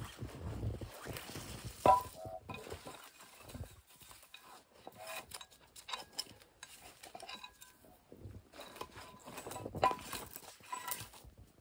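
Steel foothold trap being set by hand: scattered metallic clinks and clanks of the trap's jaws, springs and chain, some with a short ring. A sharp clank about two seconds in is the loudest.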